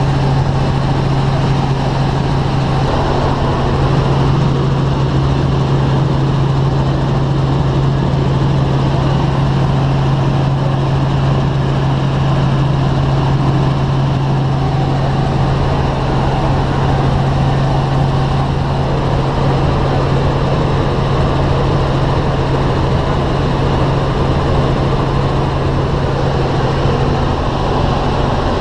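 Light helicopter in cruising flight heard from inside its cabin: a steady, loud drone of engine and rotors, a strong constant low hum over an even rushing noise.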